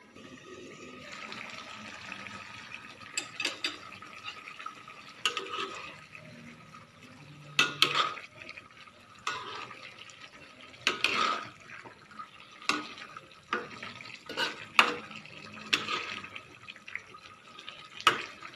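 A spatula scraping and knocking against a wok about a dozen times at irregular intervals as pieces of fish are stirred through a wet sauce.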